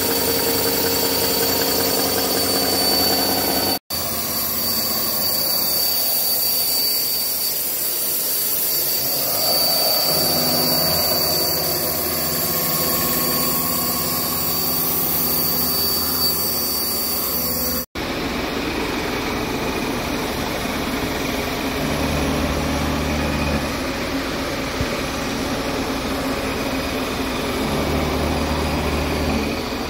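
Toshiba CNC horizontal boring mill cutting a large metal workpiece: a steady machining noise with a high whine. The sound drops out abruptly twice where separate clips are joined, and the later part is rougher, with a low hum that comes and goes twice.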